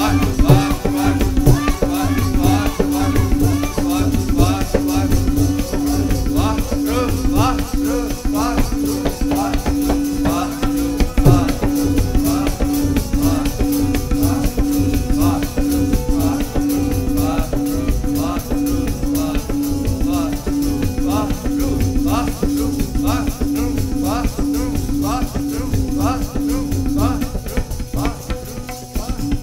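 Sikh kirtan music: a steady held drone note under fast tabla strokes, with short rising-and-falling melodic phrases repeating over it; the drone stops near the end.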